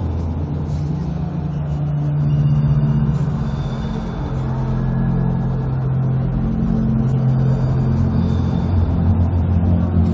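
Deep, rumbling ambient drone from a light-projection show's soundtrack. Held low tones shift in pitch every few seconds, with faint high tones drifting above.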